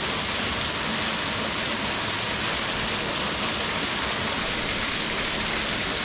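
Small jungle waterfall: a steady, even rush of falling water.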